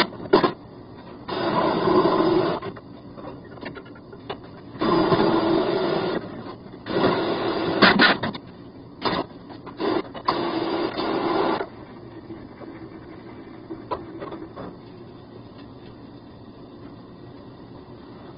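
Flexible-shaft drain cleaner run in about five short bursts of a second or so each in the first half, its spinning cable working at hardened grease inside a drain pipe. A steady low hum runs underneath throughout.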